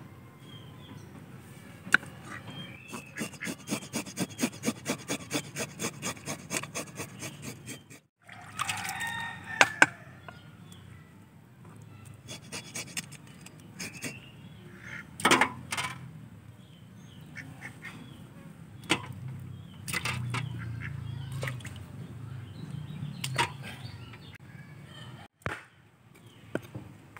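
A fish being scaled with a metal scaler on a wooden chopping block: a run of fast, even scraping strokes, then scattered scrapes with a few sharp knocks of the tool on the block.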